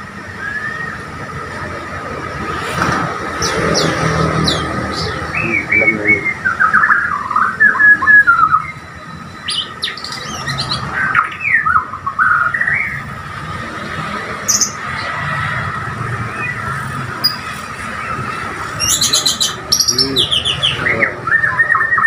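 Bornean white-rumped shama (murai Borneo) singing: phrase after phrase of clear whistles, quick trills and clipped chattering notes, with short pauses between them.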